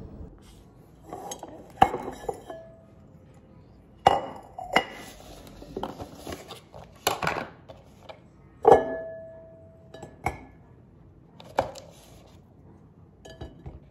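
A ceramic cookie jar and a plastic cookie container clinking and knocking as cookies are moved by hand from the container into the jar. There are about nine separate sharp clinks; one about three-quarters of the way through rings on briefly.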